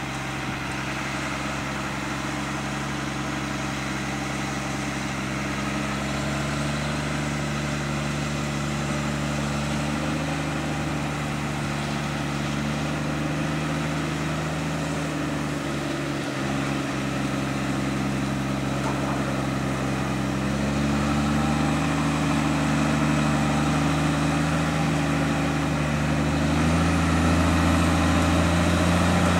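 JCB Fastrac tractor's diesel engine running under load as it pulls a heavy folded seed drill, growing steadily louder as it approaches. The engine note steps up a few times along the way.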